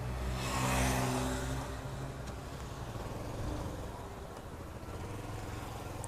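Motor vehicle engine running steadily with road noise, swelling as a vehicle passes close about a second in.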